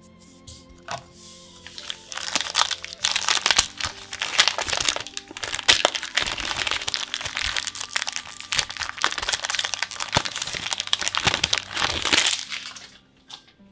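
Foil wrapper of a Magic: The Gathering booster pack being crinkled and torn open. A dense run of sharp crackles starts about two seconds in and stops shortly before the end, over soft background music.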